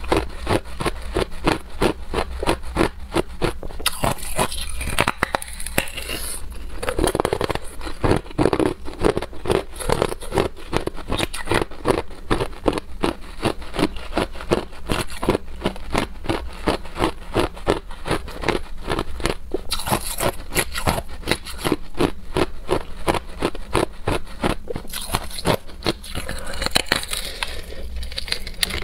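Hard clear ice being bitten and crunched between the teeth: an unbroken stream of sharp cracks and crunches.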